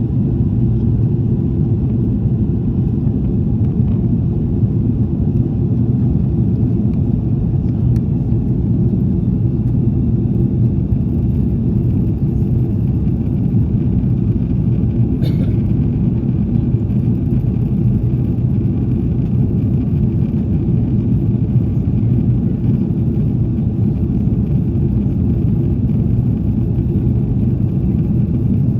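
Steady low rumble of engine and airflow noise inside the cabin of an Airbus A330-300 airliner, with a faint brief click about fifteen seconds in.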